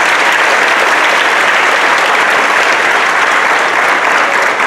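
Audience applauding: many people clapping, a steady, dense clatter that holds at the same loudness.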